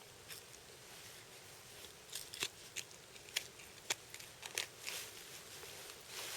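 Hunting knife cutting meat from a deer carcass: faint, scattered clicks and short scrapes as the blade works, mostly from about two to five seconds in.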